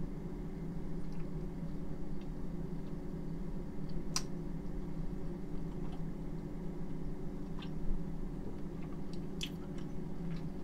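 Someone chewing soft, freshly baked milk bread buns, with a few faint clicks, over a steady low hum.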